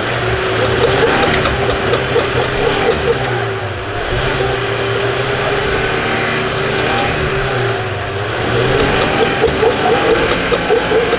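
Off-road truck engine revving under load, the revs climbing and falling twice, with a steady whine over it and an uneven pulsing toward the end.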